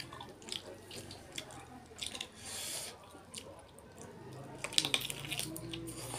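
Close-up eating sounds: wet clicks and smacks of fingers tearing curried duck meat and of biting and chewing, with a short hissing wet sound about two and a half seconds in. A low hum runs under the chewing from about four and a half seconds on.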